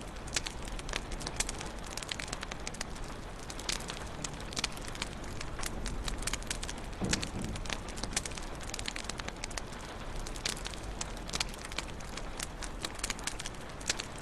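Wood fire in a fireplace crackling: irregular sharp pops and snaps over a steady low rush of burning. A soft low thud about seven seconds in.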